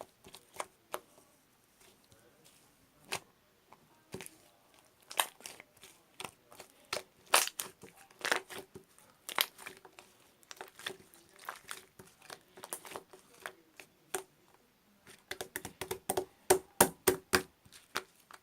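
Slime being squished and kneaded by hand, giving irregular sharp pops and clicks that come in a quick run near the end.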